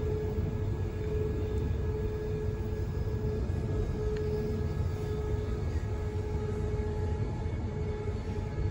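Queensland Rail NGR electric multiple-unit train running at speed, heard from inside the carriage: a steady low rumble with a steady mid-pitched whine over it.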